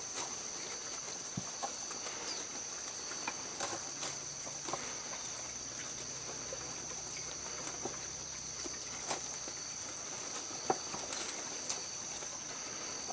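Sheep feeding on leafy Gliricidia sepium (matarratón) branches: scattered crunches, snaps and leaf rustles as they bite and chew, over a steady high-pitched hum.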